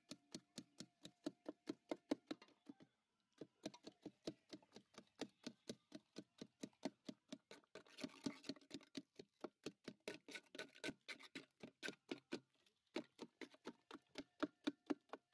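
Wooden masher pounding mixed fruit in a large aluminium pot: quick, even strokes, about four or five a second, with two short pauses, as the fruit is crushed into a pulp for juice.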